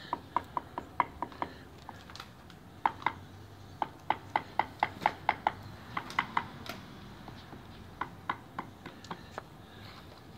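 Sharp taps of a mason's trowel on stacked-stone veneer pieces as they are bedded in mortar, coming in short runs of quick clicks, at times about three or four a second.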